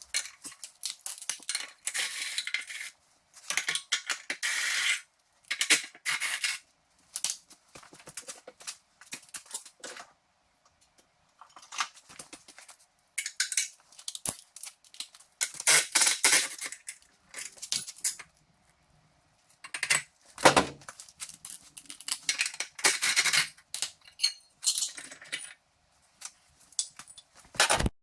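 Metal tools and parts clinking and clattering in irregular bursts, with a few sharp clicks.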